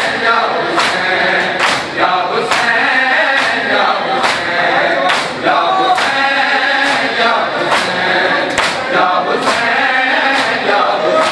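Men chanting a noha in chorus over matam: a crowd of mourners beating their chests in unison, one sharp slap a little faster than once a second.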